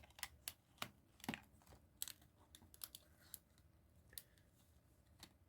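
Faint, scattered clicks and light rustling of DVD cases and discs being handled, about a dozen small clicks in all.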